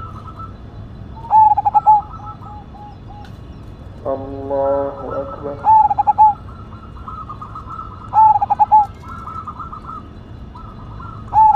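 Zebra dove (perkutut) cooing: its stuttering, rolling coo phrase comes three times, about 2.5 to 3 seconds apart, with a fourth starting near the end.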